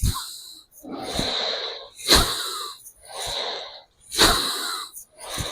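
Bhastrika pranayama (bellows breathing) at medium pace: forceful breaths drawn in and pushed out through the nose in turn, about one a second.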